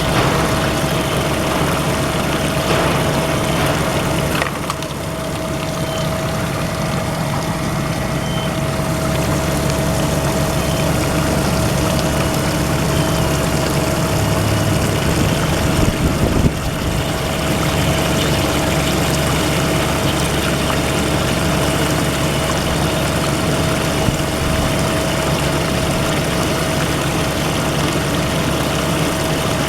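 FCL-18-3 CNC centerless grinder running through an in-feed grinding cycle: a steady machine hum with a constant whining tone, dipping briefly about four and a half and sixteen and a half seconds in.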